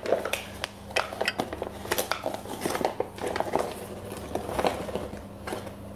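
Flour being scooped from a bag with a metal measuring cup: the bag rustles and the cup clinks and taps against the rim of a glass mixing bowl, in many short irregular clicks and rustles.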